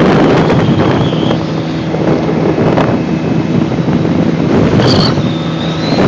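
A 2009 Genuine Stella scooter's 150cc two-stroke engine running steadily while riding at road speed, with heavy wind noise buffeting the microphone.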